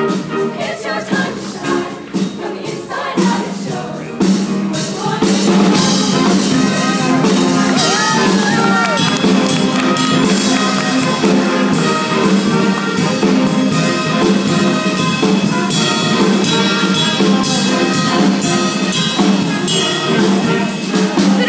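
Show choir singing an upbeat number over a live band with drum kit. The music gets louder about four seconds in and stays loud.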